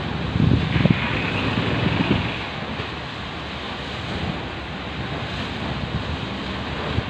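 Choppy sea waves washing and splashing against a concrete seawall, with wind buffeting the microphone in low rumbling gusts, strongest in the first couple of seconds.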